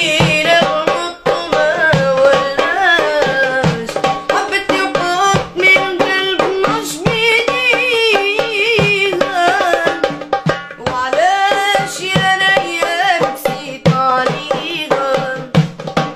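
A boy singing a Tunisian song in a wavering, ornamented line, accompanied by hand-played darbuka drums beating a quick rhythm.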